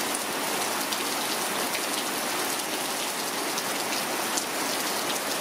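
Steady rain falling, an even hiss with scattered single drops ticking close by.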